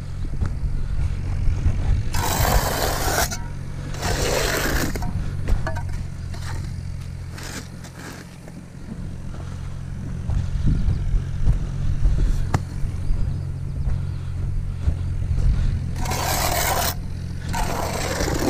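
Masonry tools scraping wet mortar along a row of concrete foundation blocks: four scrapes of about a second each, two a few seconds in and two near the end. A machine hums low and steadily underneath throughout.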